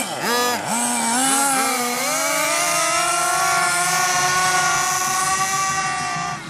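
Small nitro RC buggy engine, throttle blipped up and down a few times, then held wide open, its pitch climbing to a high steady whine.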